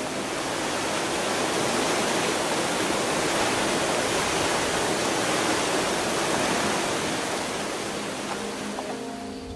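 A rushing hiss that swells over the first couple of seconds and slowly fades toward the end, with no melody or beat: a noise sweep in the background music track.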